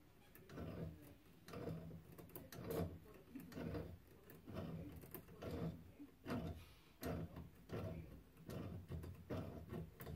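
Tongue-and-groove pliers gripping and turning a new steam radiator vent valve tight on its taped threads: a faint, repeated scraping and clicking of metal on metal, about one stroke a second, as the jaws bite, turn and reset.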